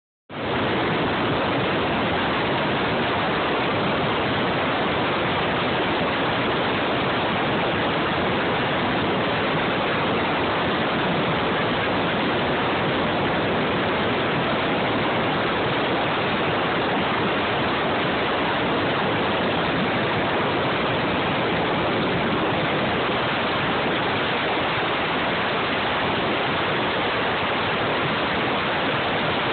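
Steady rushing noise inside a helicopter in flight: wind and helicopter noise hitting a phone microphone, even throughout with no distinct blade beat.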